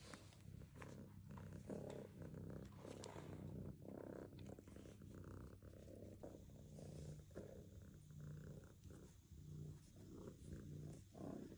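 A cat purring, faint and steady.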